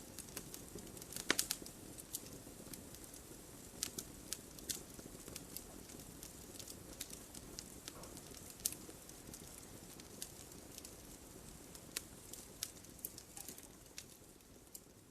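Campfire (bonfire) of burning wood crackling: sharp separate pops and snaps, a small cluster of loud ones about a second in, over a steady low hiss of the flames.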